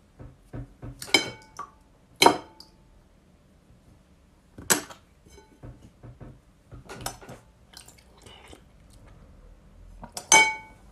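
Metal spoon clinking against a glass bowl: about five separate clinks spread a second or more apart, each leaving a short glassy ring, with softer taps between.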